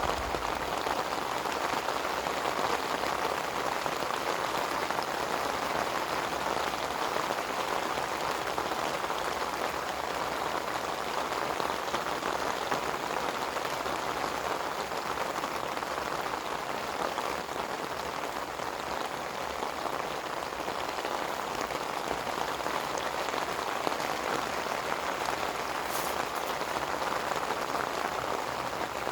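Steady rain falling during rainy-weather camping, an even patter of many drops with no change in strength.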